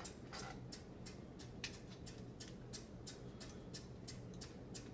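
Faint, light clicks at about three a second over a low steady hum.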